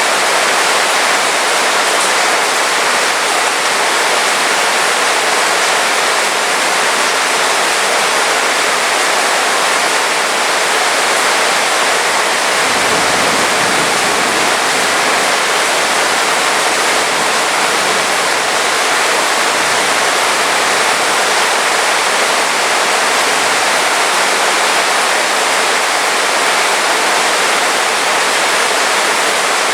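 Heavy rain falling steadily in a dense, even hiss, with a faint low rumble about halfway through.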